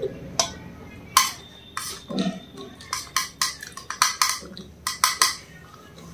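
Metal spoon clicking and scraping against a small steel tray as food is scooped up: about a dozen sharp clicks at an uneven pace.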